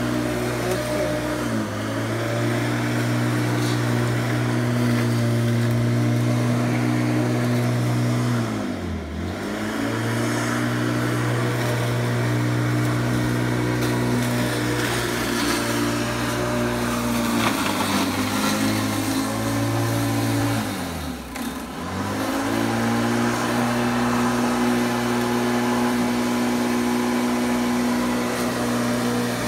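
Corded electric rotary lawn mower running with a steady hum. Twice, about nine and twenty-one seconds in, its pitch drops sharply and recovers as the motor slows in thick, overgrown grass.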